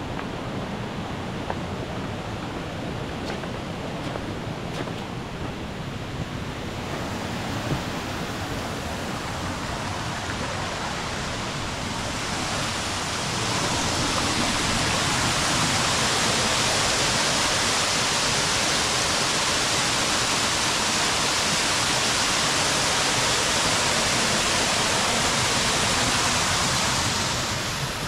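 Borovniščica stream rushing over its rocks and waterfalls in high flow, a steady roar of water. It grows brighter about a quarter of the way in and clearly louder about halfway through, as a waterfall comes nearer.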